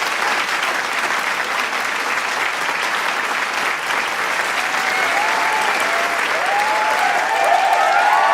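Large crowd applauding with dense, continuous clapping; shouts and cheers from the crowd rise over the clapping in the second half.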